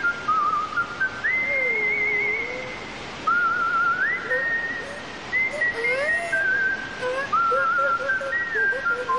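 A whistled tune: held notes with fast warbling trills and quick upward slides from one pitch to the next, with a lower second line of short gliding notes underneath, over a steady rushing noise.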